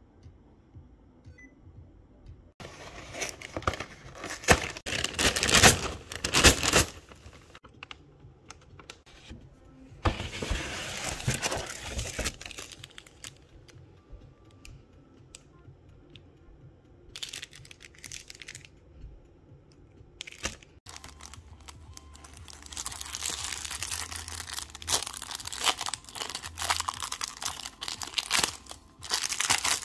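Clear plastic packaging being crinkled and torn open by hand, in several noisy bursts with pauses between them and a longer run of crackling in the last third.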